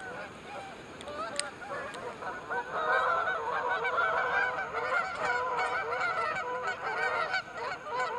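A flock of geese honking, many short calls overlapping. The honking gets denser and louder about two and a half seconds in.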